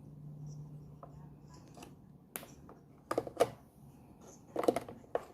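Hard plastic parts of a drip coffee maker being handled and fitted, a scatter of sharp clicks and knocks in small clusters through the last few seconds. A faint low hum sits under the first second or so.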